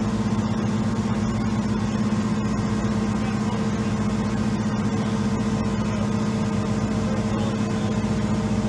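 An engine running steadily at a constant speed: an even, unbroken hum with no change in pitch.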